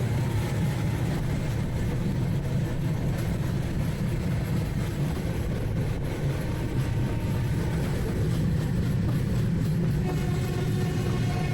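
Passenger train running along the track, a steady low rumble from the moving coach with no clear rhythm of wheel clicks.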